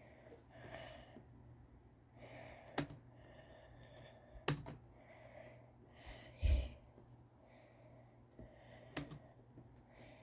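A few sharp clicks a couple of seconds apart, and one duller, louder thump about six and a half seconds in, with faint soft sounds between them.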